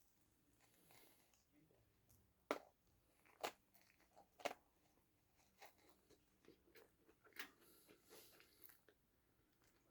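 Close-up biting and chewing of a corn dog coated in crushed Flaming Hot Cheetos: three sharp crunches about a second apart, a couple of seconds in, then softer chewing crunches.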